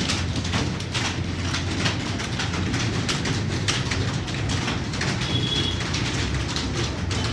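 Computer keyboards clattering in quick, irregular keystrokes as several people type at once, over a steady low hum. A brief high-pitched tone sounds about five seconds in.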